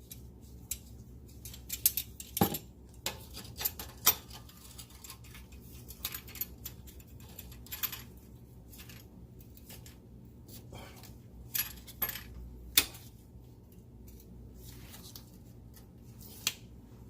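Metal parts and hand tools clinking and knocking irregularly while an exhaust pipe piece held in a vise is worked on, a dozen or so sharp clicks with the loudest clank about three-quarters of the way through, over a faint steady low hum.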